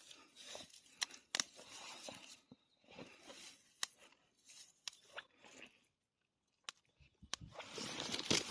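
Fiddlehead fern stalks (Osmunda) snapped off by hand: scattered sharp snaps among the rustle of leaves and undergrowth. The sound drops out for about a second past the middle, then the rustling grows denser near the end.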